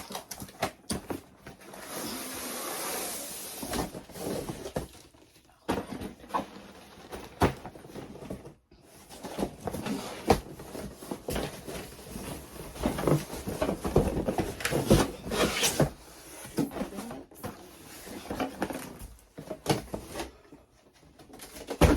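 Packaging of a boxed ring light being handled and opened: rustling and scraping, with many short knocks and clicks.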